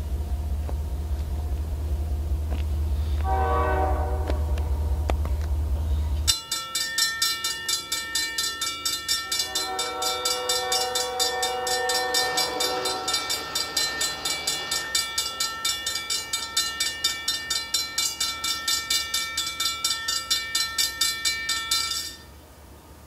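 Approaching locomotive's horn sounding twice, once briefly about three seconds in and again longer from about nine to fourteen seconds. A grade-crossing bell rings in a fast, even pulse from about six seconds in and stops shortly before the end. A low rumble fills the first six seconds.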